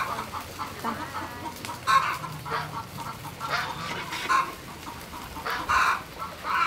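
Chickens clucking in short, irregular calls every second or so.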